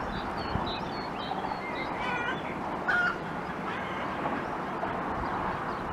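Birds chirping and calling: a few short high chirps in the first second and a half, then a longer call about two seconds in, over a steady rushing background.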